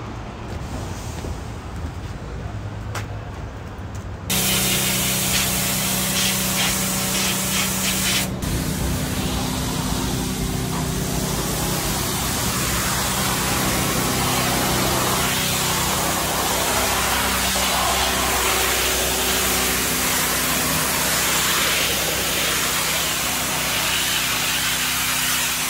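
Pressure washer running: a steady motor hum under the loud hiss of its water jet spraying brick, which starts suddenly about four seconds in. It is the wash that rinses the sprayed-on chemical cleaner off the brick.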